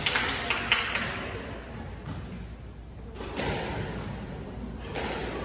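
Squash court between rallies: a few sharp taps and knocks in the first second, then low hall noise with a few more light taps near the end.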